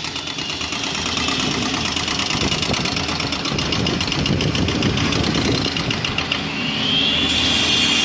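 Heavy construction machinery engine running with a steady rapid pulsing; a rising whine comes in near the end.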